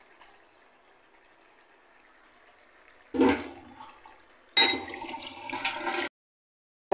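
Chicken pieces cooking in tomato paste in a non-stick wok: a faint simmer, then two sudden loud watery rushes. The first comes about three seconds in and fades away. The second comes about a second and a half later, runs for over a second and cuts off abruptly.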